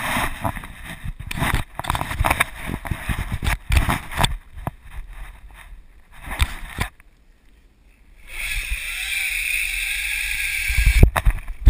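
Zipline handle and trolley knocking and rattling at first, then from about eight seconds in a steady whirring hiss as the trolley's pulleys run along the cable, with a few heavy low thumps near the end.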